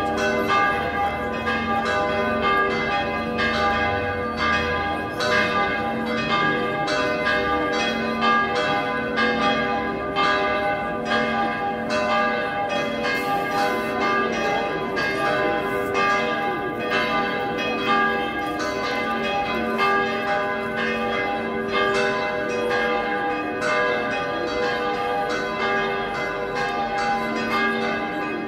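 Church bells ringing in the belfry: a continuous peal of steady, repeated strokes, each bell's tone ringing on and overlapping the next.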